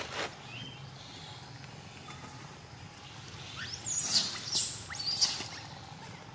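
A few high-pitched squealing animal calls in two bursts, about four and five seconds in, each sweeping up and down in pitch, over a steady low background.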